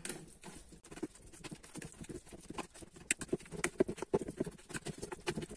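A fork mashing soft boiled pumpkin in a plastic colander: irregular quick taps and clicks, several a second, with one sharper tap about three seconds in.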